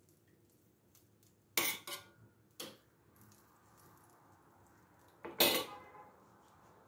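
A metal spoon clinking against a china soup plate and a small stainless-steel pan: a few light clinks, then one louder clink near the end as the spoon is put down in the pan.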